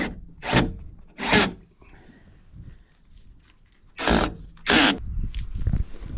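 Short rasping scrapes from work on a van's door handle and its screws: two strokes in the first second and a half, then two more about four seconds in.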